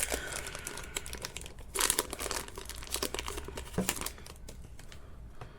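Foil wrapper of a Pokémon TCG booster pack crinkling and tearing as it is opened by hand, with a louder rustling burst about two seconds in.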